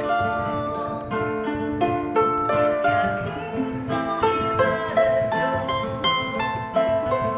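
Plucked-string music: a harp and an acoustic guitar picking a melody of separate ringing notes.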